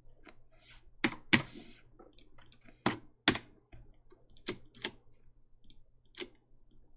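Scattered sharp clicks of a computer mouse and keyboard, the loudest about a second in and again about three seconds in.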